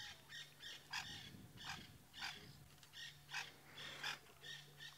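African wild dogs twittering: short, high chirping calls repeated about two or three times a second, the contact calls of the pack regrouping.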